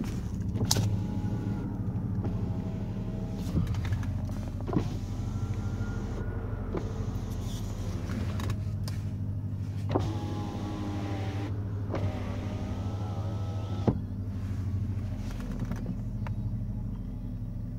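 2007 Mercedes-Benz S550 power windows being run down and up several times. Each run is an electric motor whine that ends in a sharp thunk as the glass stops, over a steady low hum.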